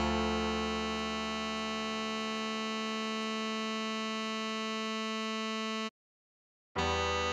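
A tenor saxophone holds one long, steady note (written B4) for about six seconds, then cuts off suddenly. After a short silence a slightly higher note (written C#5) begins near the end.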